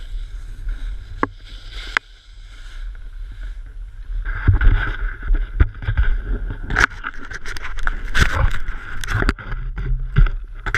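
Snowboard sliding and scraping over snow, with wind rumbling on the action camera's microphone; the noise thins briefly about two seconds in, then grows rougher with irregular knocks from about four seconds on.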